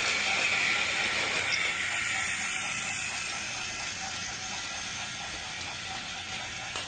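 A small geared motor whirring steadily with faint regular clicking, slowly getting quieter.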